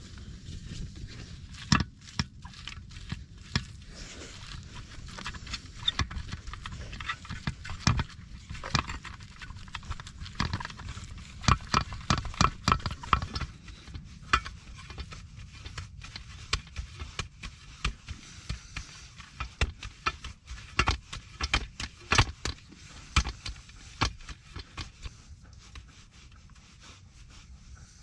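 Hands kneading and slapping seasoned minced meat in a metal tray: wet squishes with irregular sharp taps and knocks against the tray, over a steady low rumble.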